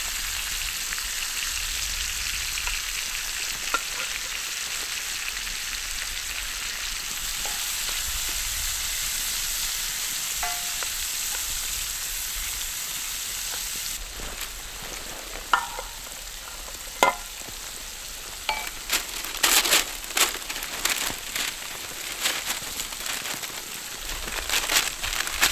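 Onions frying in a cast iron pan, a steady sizzling hiss that drops away about halfway through. After that come scattered sharp clicks and knocks, growing busier near the end.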